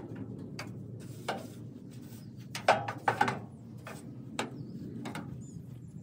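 Broom strokes sweeping dust and cobwebs off an old John Deere combine, about six separate short scraping sweeps, the loudest about two and a half seconds in.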